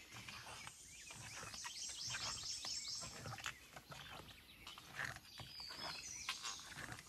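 Footsteps on the wooden planks of a footbridge, soft irregular thuds. A songbird sings a quick run of high repeated notes about two seconds in.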